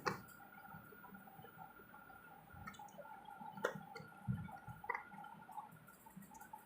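A few faint, sharp clicks and knocks of batteries being loaded into a plastic torch by hand, the loudest right at the start and about three and a half seconds in, over a faint steady hum.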